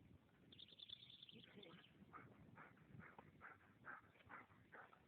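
Small electronic buzzer on a dog's collar buzzing faintly in a fast pulsing beep, about ten pulses a second, for about a second and a half, then stopping; faint irregular scuffling sounds from the dog follow.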